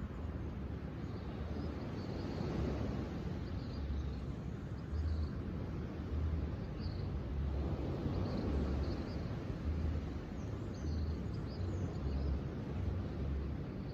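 Outdoor ambience: wind rumbling unevenly on the microphone under a steady rush, with small birds chirping briefly and repeatedly.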